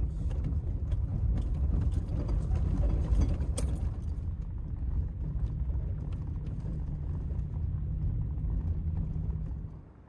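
Truck driving on a rough dirt road, heard from inside the cab: a low rumble of engine and tyres with scattered ticks and rattles over the first few seconds, settling into a steadier hum. It cuts off just before the end.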